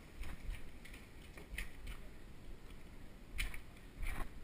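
Knife and hands working a raw sheepshead as a fillet is cut and pulled free from the carcass: faint, scattered clicks and scrapes, with two louder scrapes near the end.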